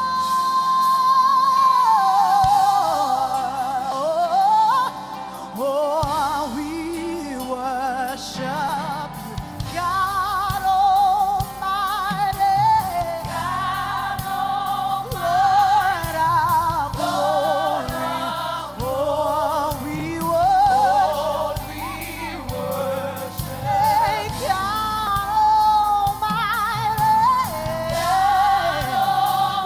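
A woman sings a wordless gospel worship melody into a microphone, with vibrato and melismatic runs. It opens on a long held high note that slides down. A keyboard accompaniment fills in underneath from about six seconds in.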